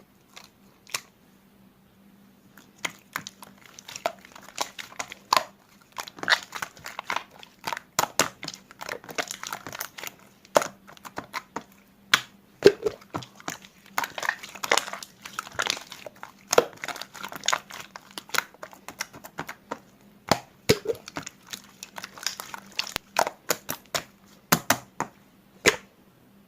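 Slime being handled, giving a dense, irregular run of sharp crackling clicks and pops, with a faint steady hum underneath.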